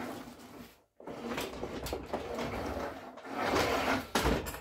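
Wooden carriage of a homemade rifling bench sliding along its wooden guide rails, drawing the cutter rod back through the rifle barrel: long runs of sliding and scraping, with a short pause about a second in.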